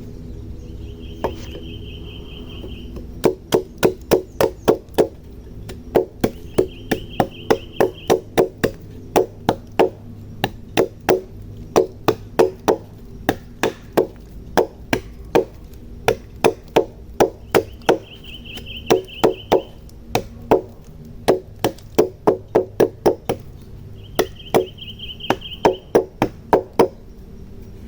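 A hand tool striking wood in quick, even blows, three to four a second, in runs broken by short pauses.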